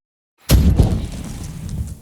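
A fire sound effect: a sudden burst of flame about half a second in, with a deep rumble and some crackling that fades away over the next second and a half.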